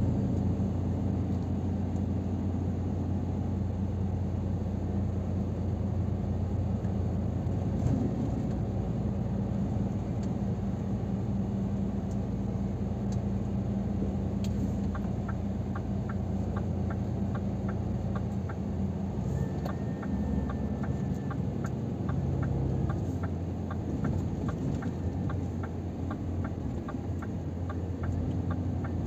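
Steady low drone of a 2023 Scania R500's diesel engine and tyres, heard from inside the cab while driving in traffic. About halfway through, an even ticking starts at about two ticks a second and keeps going: the turn indicator.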